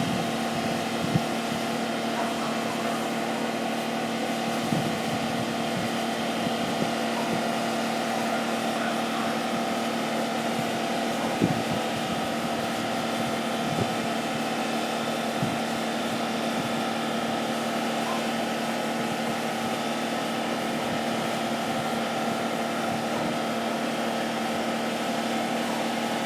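Mercedes engine running steadily with a constant hum and a few faint ticks, burning oil left in the exhaust and catalytic converters after a turbocharger failure.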